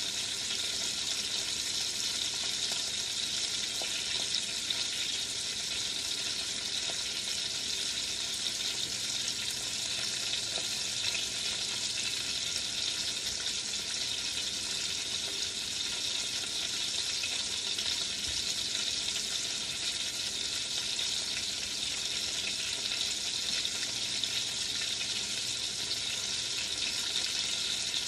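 Chicken searing in a 6-quart enameled cast iron Dutch oven: a steady, even sizzle as the first side browns before it is flipped.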